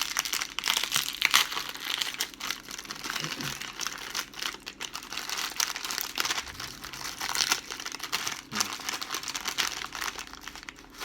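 Packaged ube sponge cake's wrapper crinkling continuously as it is handled and opened.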